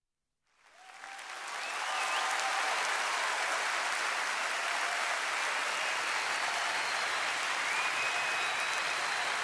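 Large concert audience applauding and cheering, with a few whistles. It fades in over the first two seconds and then holds steady.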